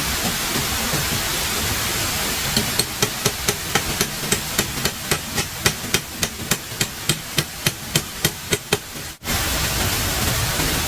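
Steady rushing hiss with a run of rapid, even knocks, about four a second, like hammering, starting a few seconds in and stopping just before the sound cuts out briefly near the end.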